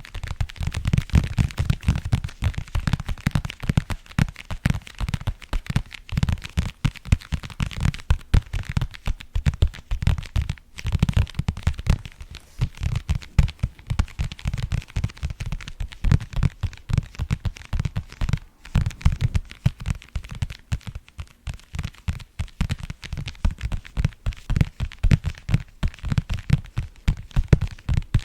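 Fingers tapping rapidly and continuously on a hard object close to the microphone: many quick, uneven taps a second, each with a deep thud.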